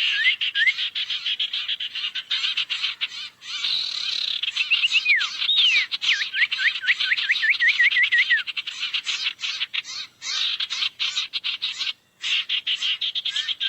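Bird-lure recording of sirtu birds: a dense chorus of fast chattering chirps with short rising whistles. About halfway through comes a run of a dozen or so quick up-and-down notes, and the chatter breaks off for a moment about twelve seconds in.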